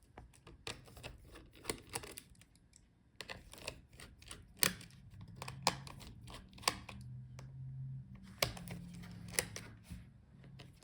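Irregular small clicks and taps of a screwdriver and fingers on the screws and plastic parts of an HP EliteBook 840 G8 laptop while its heatsink and cooling fan are being taken out. A low steady hum runs under the clicks from about halfway in.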